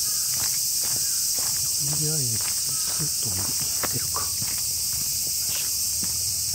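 Footsteps crunching irregularly on dry leaf litter under a steady, loud, high insect hiss from the trees, the summer drone the recordist calls a huge white noise.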